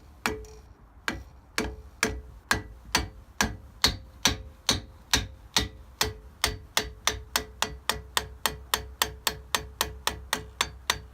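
Steady run of light hammer taps on a screwdriver used as a drift, driving a grease-stuck part out of a Walker Turner drill press head. The taps speed up from about two to about four a second, each with a short metallic ring.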